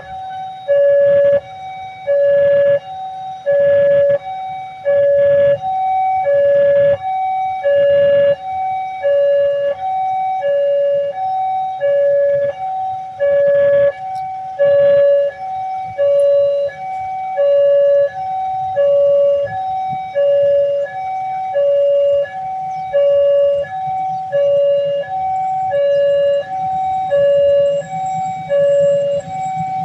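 Railway level-crossing warning alarm sounding a steady two-tone pattern, a lower and a higher tone alternating about every two-thirds of a second. A low rumble grows beneath it near the end.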